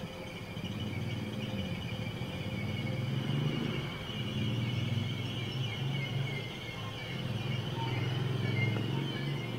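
SBB passenger train moving slowly through the station, with a sustained, wavering high-pitched wheel squeal over a low rumble from the coaches.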